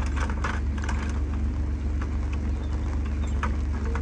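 John Deere Gator utility vehicle's engine idling steadily, with a few light clicks and clinks of hand tools being lifted from a bucket.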